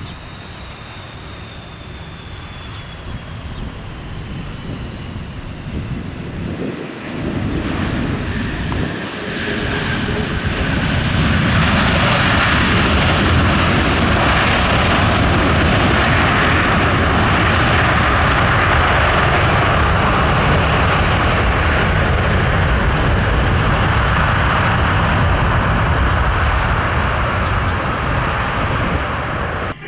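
Jet engines of an Airbus A330-203 (General Electric CF6-80E1 turbofans) on arrival. A high whine falls in pitch over the first few seconds, then the noise grows louder and from about twelve seconds in holds as a loud, steady roar.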